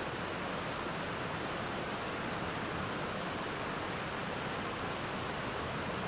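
Creek water rushing over a waterfall and rocky rapids: a steady, even rush with no breaks or changes.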